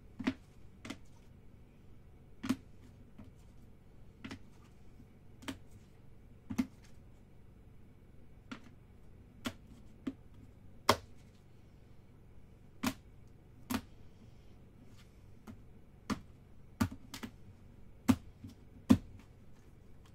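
Hard plastic toploader card holders clacking against each other and being set down on a table: sharp, irregular clicks, roughly one a second, some much louder than others.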